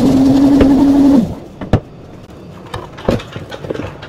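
Blender motor running at full speed, churning milk, Oreo cookies and ice, and cutting off about a second in; a few knocks and clicks follow as the jar is handled.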